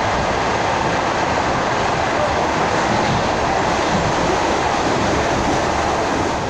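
Suburban electric train (elektrichka) running at speed, heard from inside the carriage: a steady rumble and rush of wheels on the rails.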